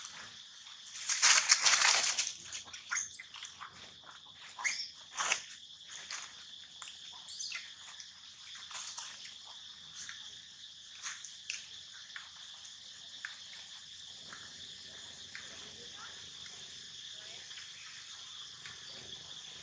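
Dry leaf litter crackling and rustling as monkeys shift on it, loudest about a second in, with scattered crackles afterwards. Steady high insect drone throughout.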